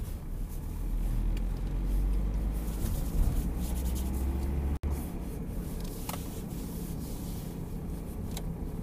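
A car running at low town speed, its engine and tyre noise heard from inside the cabin as a steady low rumble. The sound cuts out for an instant about halfway through.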